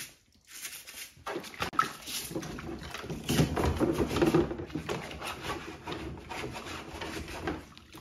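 A soft-bristled dish brush scrubbing a plastic dishwasher filter in soapy sink water: irregular brushing strokes with sloshing and small splashes, starting about half a second in.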